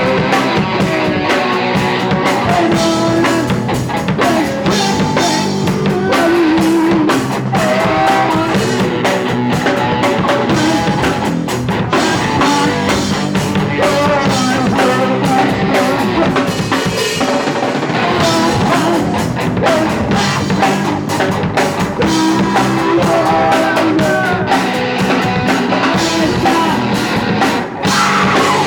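Punk rock band playing live: electric guitar over a drum kit, loud and continuous, with a brief drop in level near the end.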